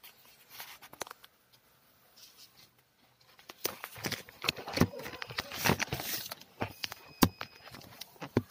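Plastic courier mailer bag rustling and crackling as it is handled and opened, with scattered sharp clicks, getting much denser and louder from about three and a half seconds in.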